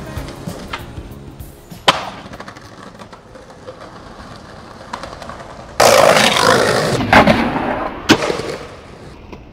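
Skateboard on concrete: a sharp clack about two seconds in, then a loud rough rush of board and wheel noise for about a second and a half from around six seconds, with two more clacks, over background music.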